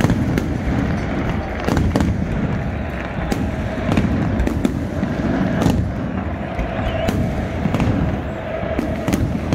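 Fireworks going off: many sharp bangs at irregular intervals, about one or two a second. A constant din from a packed stadium crowd runs beneath them.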